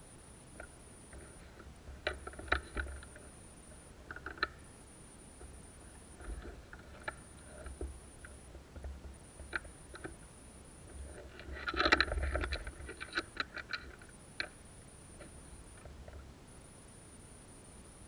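Dry leaves and twigs crackling and rustling underfoot and against clothing as someone moves through forest brush, in irregular bunches, with the busiest burst about twelve seconds in.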